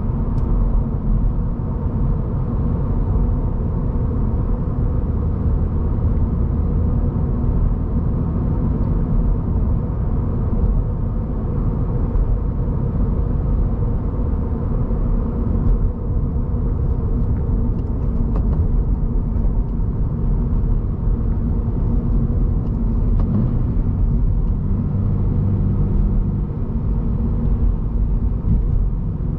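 Inside the cabin of a 2023 Subaru BRZ cruising at steady highway speed: its 2.4-litre flat-four engine runs evenly under constant tyre and road noise, with no shifting or revving.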